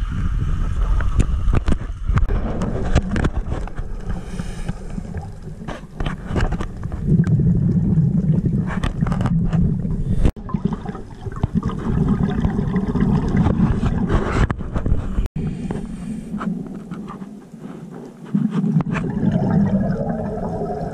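Muffled underwater sound heard through an action camera's waterproof housing: a low, continuous water rumble with many scattered clicks and knocks and some gurgling of divers' bubbles. It cuts out abruptly for an instant twice.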